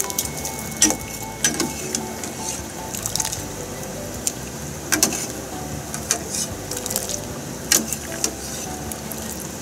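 Metal ladle stirring fish heads and bones in hot water in a metal saucepan, with watery sloshing and a few sharp clinks of the ladle against the pot. The fish scraps are being blanched to take away their fishy smell.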